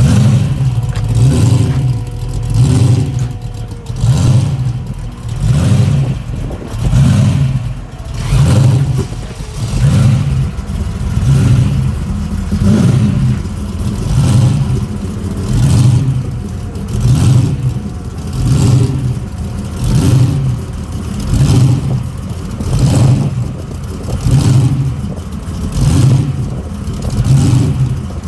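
Holden Premier's engine running at idle from its exhaust, the rumble swelling and easing in a regular surge about every one and a half seconds.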